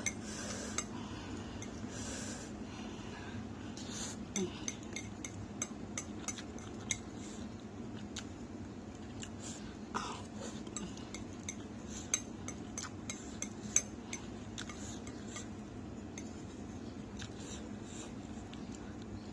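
Cutlery clinking against a bowl of noodles while eating: many light, scattered clinks, a few sharper ones near the middle, over a steady low hum.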